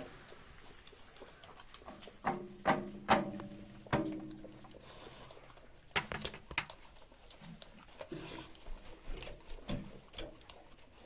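Pigs calling: a quick run of four short pitched calls a couple of seconds in, followed by scattered knocks and clicks.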